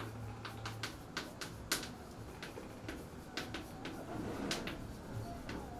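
Chalk writing on a blackboard: a string of short, irregular taps and scratches as the letters are stroked out.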